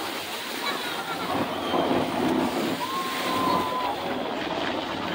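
Steady wash of wind on the microphone and surf, with a distant Army helicopter running low over the water and faint voices from the crowd. A short thin high tone sounds about three seconds in.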